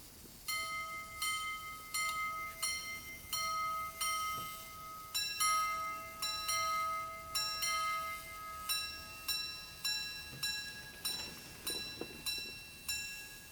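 Minute repeater of an antique R. Picard & Fils (Pegasus) pocket watch striking the time, its hammers ringing on the gongs: a series of low single strikes, then paired strikes on two gongs, then higher single strikes near the end, about one to two strikes a second.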